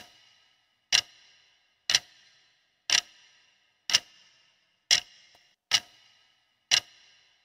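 Clock-tick sound effect marking a quiz countdown timer: sharp ticks about once a second, eight in all, each with a short ringing tail.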